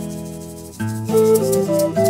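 Background instrumental music: plucked strings and a shaker. A chord fades away, and a new one comes in just under a second in.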